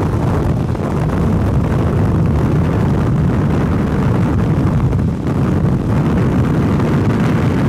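Strong wind buffeting the microphone: a loud, steady, low rushing noise that wavers in strength, from the storm's winds near a tornado.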